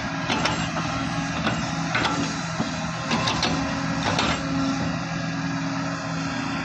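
Excavator's diesel engine running steadily under load, with several sharp knocks scattered through it.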